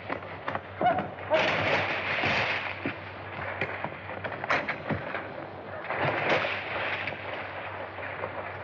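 A scatter of sharp cracks and bangs in an old film soundtrack's action scene, with two longer stretches of noisy crashing, one starting just over a second in and one about six seconds in, over steady soundtrack hiss.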